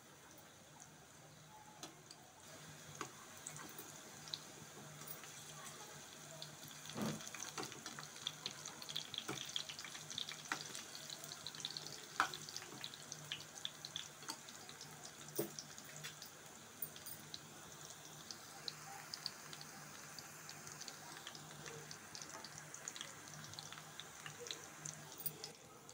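Oil sizzling and crackling softly around slices of patra (colocasia-leaf rolls) shallow-frying in a kadhai, with scattered clicks of metal tongs as the pieces are turned over.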